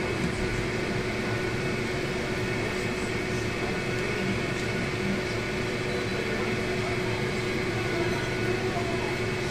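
Steady mechanical hum from a running kitchen appliance, with a faint held tone through it, while a pot of water with greens simmers.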